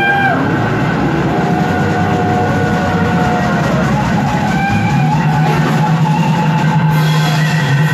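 Live band playing a slow blues-rock song: an electric guitar lead holds long notes bent up into pitch, over a bass line that comes in low and steady about five seconds in.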